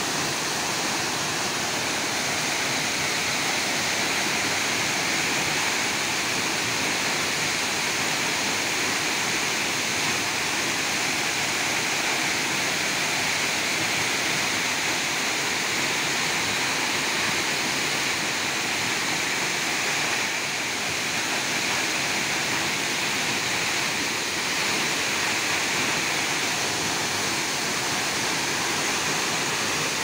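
Tall waterfall plunging onto rocks and into its pool: a steady, unbroken rush of falling water.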